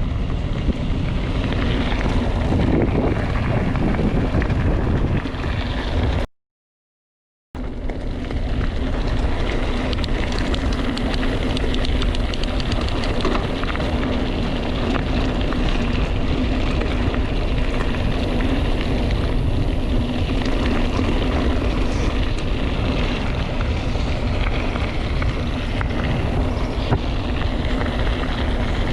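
Mountain bike descending fast: wind buffeting the action camera's microphone over the noise of tyres on rough ground, with the bike rattling and clattering over bumps. The sound cuts out completely for about a second some six seconds in.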